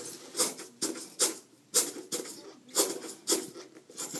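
Bernese Mountain Dog chewing on a ball: repeated bites and chomps, about two a second, some louder than others.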